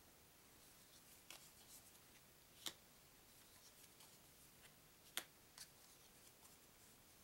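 Near silence broken by a few short clicks and flicks of stiff paper game cards being lifted off a stack and laid down one by one, the two sharpest about two and a half and five seconds in.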